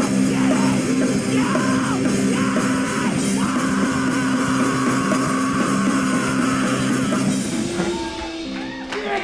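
Hardcore band playing live, loud: guitar, bass and fast drums with shouted vocals. The song stops about seven and a half seconds in, leaving a quieter held tone.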